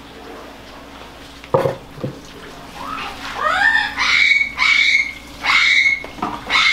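A sharp knock about a second and a half in, then an animal calling over and over: loud cries that rise in pitch and hold a high note, about one a second.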